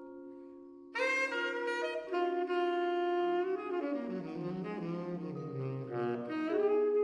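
A vibraphone chord rings and fades, then about a second in a saxophone comes in loudly, playing a slow melodic phrase over sustained vibraphone chords.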